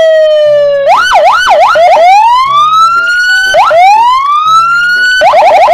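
Police car siren: it opens on a falling tone, then goes into a fast yelp of quick up-and-down sweeps. It follows with two slow wails that rise and level off, and is back in the fast yelp near the end.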